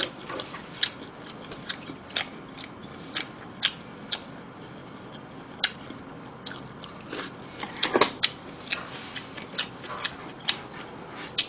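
Close-miked open-mouthed chewing with irregular wet smacking clicks, a quick cluster of them about eight seconds in.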